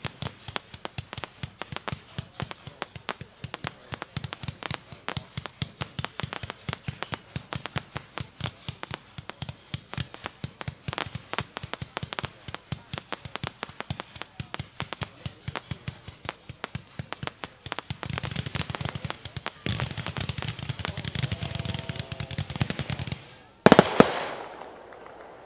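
A 228-shot consumer fireworks cake, Magnus Fireworks' 'Amazing Pyro', fires a rapid, continuous string of sharp shots, several a second. About 18 seconds in the firing thickens into a louder, denser barrage, and one much louder bang comes near the end.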